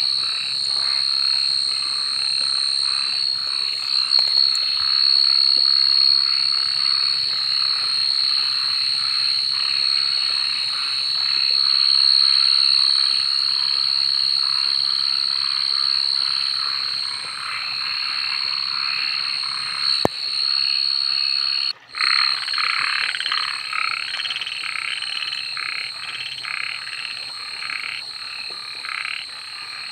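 A dense chorus of many frogs croaking in rapid, overlapping calls, over a steady high-pitched trill. The sound drops out for an instant about 22 seconds in.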